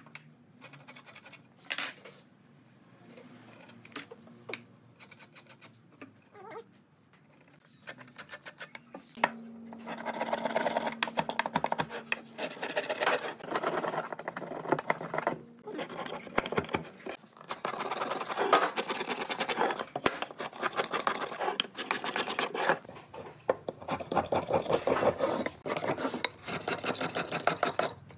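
Hand tool worked along a hardwood beam: scattered light knocks and rubs at first, then from about ten seconds in a long run of quick rasping strokes of wood being sanded and shaved by hand. A brief low hum sounds under the first of the strokes.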